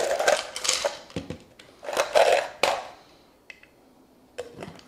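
Ice cubes clattering and rattling as they are poured from a plastic tub into a BlendJet portable blender's plastic jar, with a second burst of rattling about two seconds in. A few small plastic clicks follow near the end as the jar's lid is handled.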